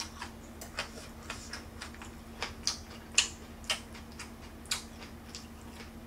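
Eating sounds: a person chewing with wet mouth clicks and smacks, irregular and roughly one or two a second, the sharpest a little past the middle.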